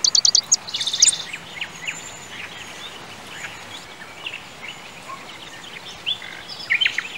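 Birdsong ambience: many small birds chirping and calling over a steady background hiss, with a quick run of rapid high notes in the first second and another cluster of chirps near the end.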